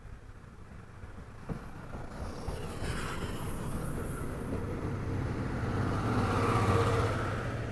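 Chichibu Railway's C58 363 steam locomotive and its train pulling in and passing close by, growing louder to a peak about six to seven seconds in as the tender and first coach go past. A high hiss comes in about three seconds in, as the locomotive passes.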